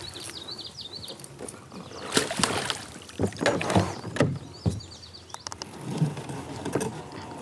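Hooked smallmouth bass thrashing and splashing at the surface of shallow water, in several separate bursts of splashing.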